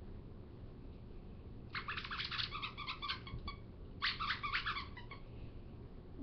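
Great Pyrenees puppy yipping in two bursts of rapid, high-pitched little barks.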